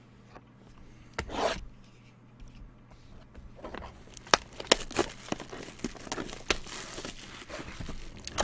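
Trading card packaging being opened: plastic wrapping crinkling and tearing, with a brief rustle about a second in, then a run of irregular crackles and sharp clicks from about halfway through.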